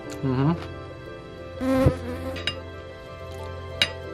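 A fly buzzing close to the microphone in two short passes, its pitch bending as it moves, with a single sharp click near the end.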